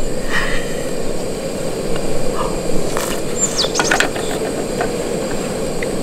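Utensils clinking and scraping against a Trangia camp cooking pot, a cluster of sharp clicks about three to four seconds in, over a steady low hiss.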